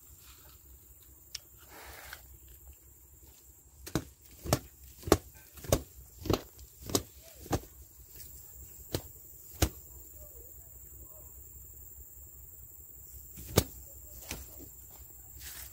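A series of sharp knocks, about nine in quick succession roughly two thirds of a second apart, then a lone one a few seconds later, over a faint steady high-pitched hum.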